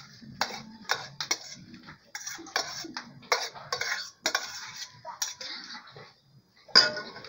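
A white bowl knocking and scraping against the rim of a stainless steel mixing bowl as chopped onion is tipped in: a string of irregular sharp clinks and knocks. Near the end a spoon strikes the steel bowl with the loudest clink.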